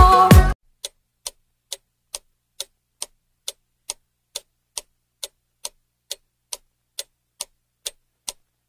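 A pop song cuts off about half a second in, then a clock-ticking sound effect runs at an even pace of a little over two ticks a second: a countdown timer giving time to guess.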